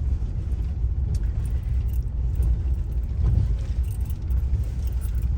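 Steady low rumble of a car driving, its engine and tyres heard from inside the cabin.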